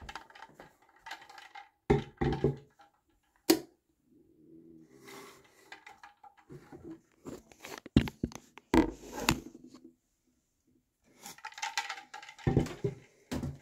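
Phone handling noise: rubbing, knocks and clicks as the phone is moved about and set down, with a sharp click about three and a half seconds in.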